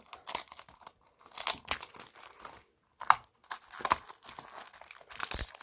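Fingers prying open the end flap of a small cardboard toy-car box: irregular cardboard crinkling, scraping and small sharp clicks and tears, with a brief pause about three seconds in.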